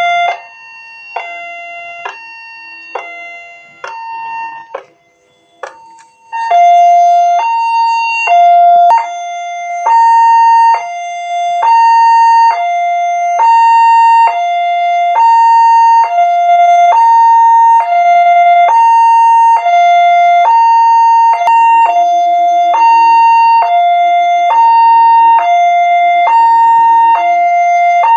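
Railway level-crossing warning siren sounding a two-tone alarm, alternating between a high and a low tone about every half second. It is fainter for the first six seconds or so, then loud and steady.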